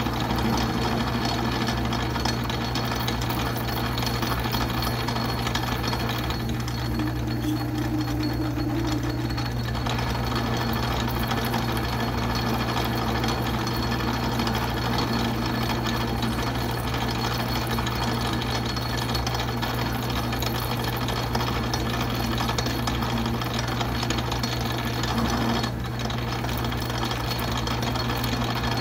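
Atlas metal lathe running steadily, its spindle on freshly re-shimmed babbitt bearings, while a parting tool cuts into a spinning bar of 4140 steel. A steady low hum runs under a dense mechanical drive and cutting sound, with a brief extra tone for about three seconds a quarter of the way in.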